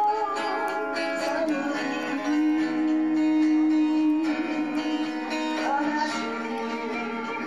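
An enka song played live: acoustic guitar accompaniment with a woman singing into a microphone, a long note held from about two to four seconds in.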